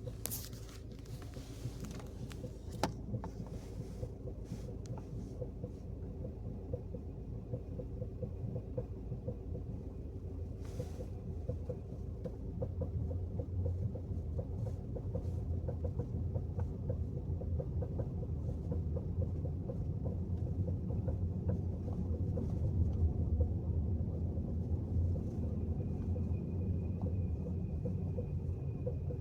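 Peugeot car rolling in neutral at very low speed, its engine idling with a low rumble and a repeated knocking noise. The rumble grows louder about halfway through. The owner does not know the knock's cause; it shows only on hot days when the car coasts in neutral.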